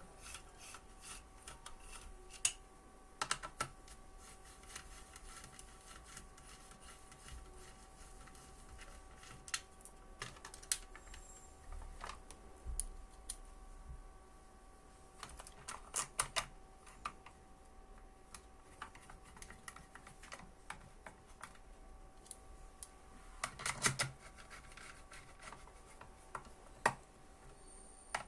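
Scattered small clicks and taps of hands working on the parts of an electrical testing board, loosening screws and handling small plastic and metal fittings, with a faint steady hum underneath.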